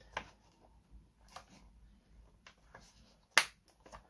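Plastic pieces of a Mini Brands convenience store playset tapping and clicking lightly as they are fitted, then one sharp, much louder click about three and a half seconds in as a part snaps into place.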